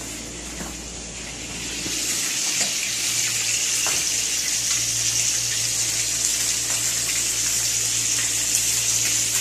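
Water running steadily from a tap, coming in about two seconds in as a steady hiss, over a low hum.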